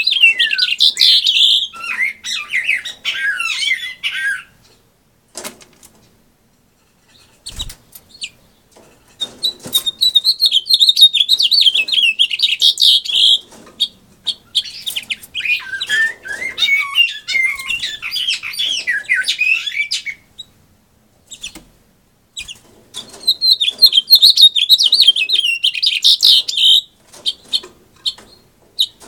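Caged male house finch singing: three long, rapid, jumbled warbling songs, one right at the start, one from about nine seconds in lasting some ten seconds, and one from about twenty-three seconds in, with short quiet pauses between them.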